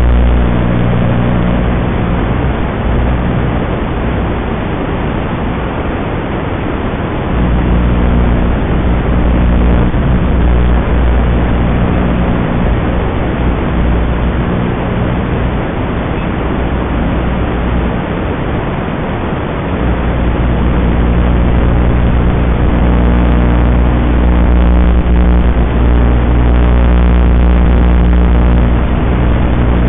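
A 5-inch racing quadcopter's 2204 brushless motors and tri-blade propellers buzzing in flight under a steady hiss. The buzz swells and fades with throttle: strong at first, again from about a quarter of the way in to past the middle, and from about two-thirds in to the end.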